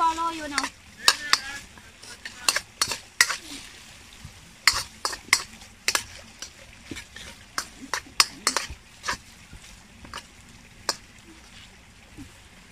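A utensil stirring food in a pan over a cooking fire, scraping and clinking against the metal in irregular sharp strokes, over a faint frying sizzle.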